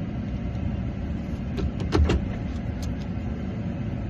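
Steady low rumble like a car running, with a short cluster of sharp clicks and a knock about halfway through.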